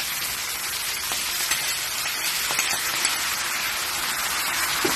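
Blue swimming crabs frying in hot oil in a wide pan: a steady sizzling hiss, with a few faint ticks.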